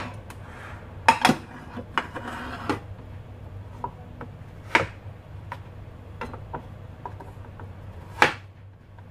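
Kitchen utensils being handled on a counter: a string of short, sharp knocks and clatters of a knife and plates being picked up and set down, loudest about a second in and near the end, over a steady low hum.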